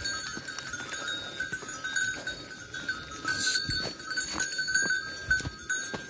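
A flock of sheep moving and grazing, with bells ringing steadily and scattered clinks and knocks.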